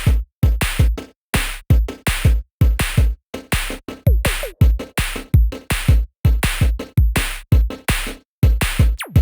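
Electronic background music: a drum-machine beat of punchy kicks and snare hits with sharp gaps between them.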